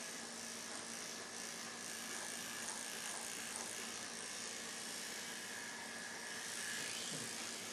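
Electric hair clippers running, a steady hum over an even hiss.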